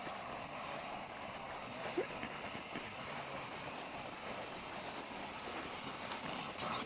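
Steady high-pitched chirring of a night insect chorus, with a soft haze of outdoor background noise; a single short knock about two seconds in and a couple of faint ticks near the end.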